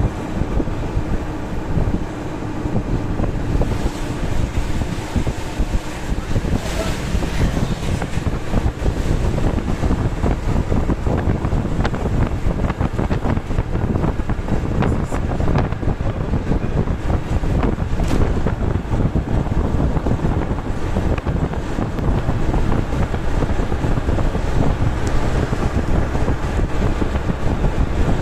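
Steady road and wind noise from inside a moving vehicle, with wind buffeting the microphone.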